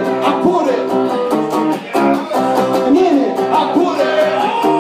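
Live band: acoustic guitar strummed in chords, with a singer holding and sliding a wordless vocal line over it.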